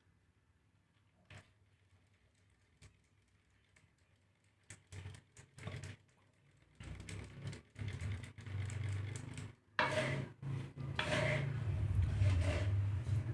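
Dry seed mix of millet and black glutinous rice stirred and scraped around a pan while being dry-roasted: a few faint clicks, then scattered scraping and rattling that grows steadier in the second half, over a low hum.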